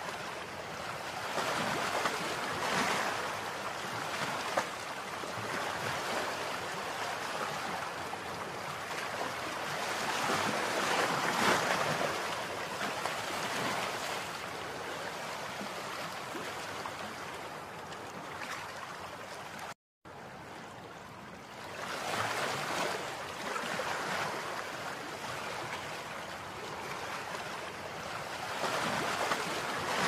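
Rushing, washing water: a steady noise that swells and eases every several seconds. It cuts out completely for a split second about two-thirds of the way through.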